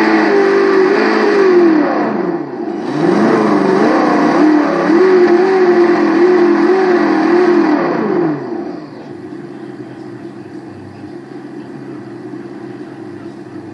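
Synthetic engine sound from an ESS-ONE+ sound module played through its speaker, revving up and down repeatedly. About eight seconds in the revs fall away and it settles to a quieter, steady low hum.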